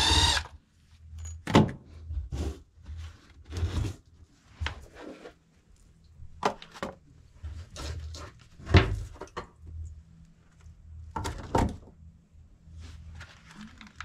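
Cordless drill whirring briefly as it backs out a sump-pit cover bolt, stopping about half a second in. Then scattered knocks and clunks as the plastic sump-basin cover is worked loose and lifted off.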